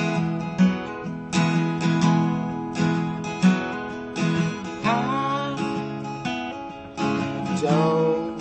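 Acoustic guitar with a capo, picked and strummed in a steady rhythm of ringing chords, about one to two strokes a second.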